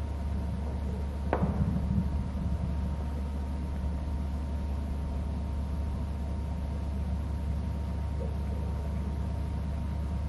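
Steady low rumble with a faint steady whine, and a single short sharp sound about a second and a half in.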